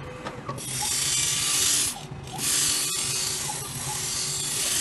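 Phone screen grinding machine running, its motor humming steadily while the pad scrubs across the glass in long noisy passes that break off briefly about two seconds in and again near the end.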